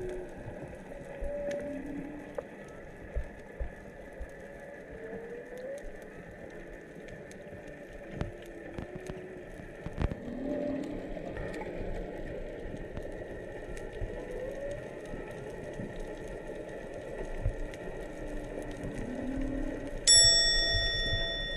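Humpback whale song heard underwater: a string of short moans and swooping calls every second or two, some rising and some falling in pitch, over a faint crackle of clicks. Near the end a sudden loud, high, steady tone starts and holds.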